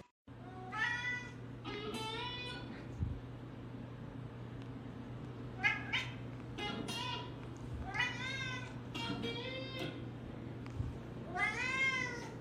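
A cat meowing repeatedly: about eight separate rising-then-falling meows, each under a second long, with pauses between, over a steady low hum.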